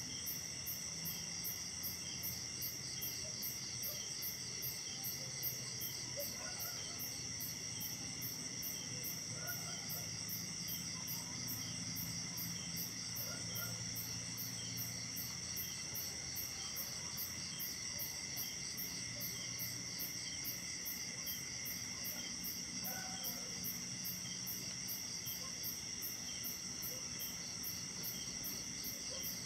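Night insect chorus of crickets and other insects: several steady high trills layered together, with one very high chirp pulsing about twice a second. A faint low hum lies underneath.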